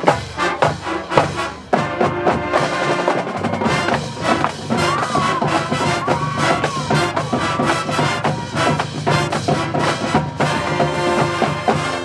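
Marching band playing at full volume: brass section holding and punching chords over a drumline beating out rapid, driving hits. The music stops abruptly right at the end.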